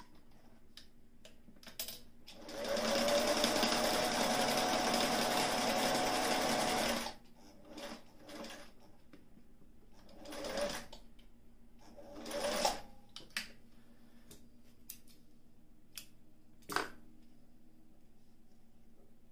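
Singer 457 Stylist heavy-duty zigzag sewing machine running at a steady speed for about four and a half seconds, stitching through fabric, then stopping. It is followed by scattered short clicks and brief noises.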